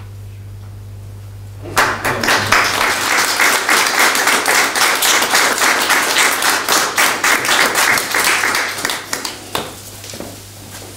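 Small audience applauding. It starts suddenly about two seconds in and dies away into a few scattered claps near the end.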